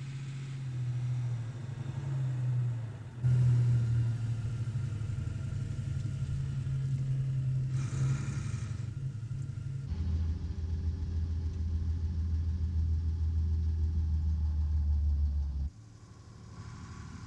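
A heavy lorry engine running with a low, steady hum. It gets louder about three seconds in, settles to a deeper note at about ten seconds, and drops away suddenly near the end.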